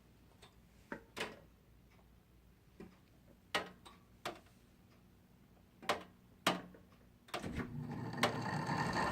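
A few sharp clicks and knocks, then about seven seconds in a Fedders 5,000 BTU window air conditioner starts up and runs with a steady hum; it is stuck on high cool, so it starts as soon as it is powered.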